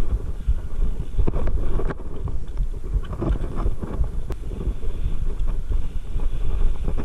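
Mountain bike rolling fast down a rough dirt singletrack: a steady rumble of tyres and wind buffeting the microphone, with irregular knocks and rattles from the bike over bumps.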